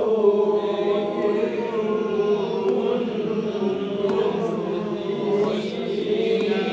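Quranic verses chanted slowly in tajwid style, with long, steady held notes. The notes draw out the nasal 'dengung' (ghunnah) of meeting nun and mim sounds.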